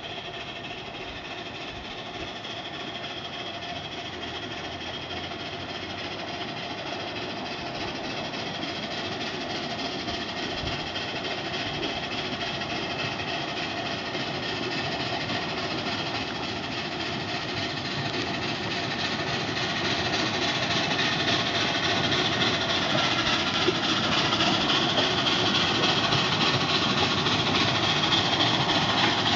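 Miniature steam train running towards the listener, a small steam locomotive hauling passenger coaches; its running noise grows steadily louder as it approaches.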